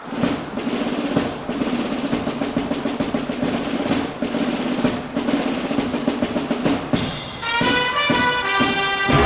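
Background music: a long snare drum roll, with sustained pitched notes coming in about seven seconds in.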